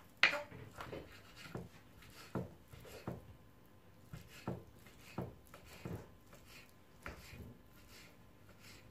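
Kitchen knife dicing smoked salmon on a wooden cutting board: irregular soft taps of the blade on the board, one or two a second, the sharpest just after the start.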